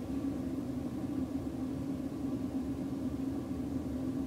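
Steady low background hum with one constant pitch, with no distinct event in it.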